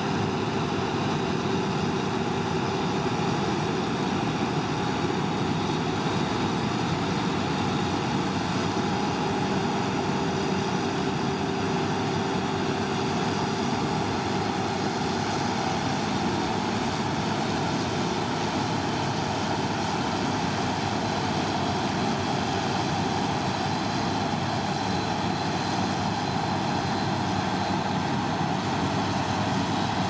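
Massey Ferguson 7274 Cerea combine harvester running steadily under load while cutting and threshing spring barley. Its diesel engine and threshing machinery make an even mechanical drone with faint steady tones over it.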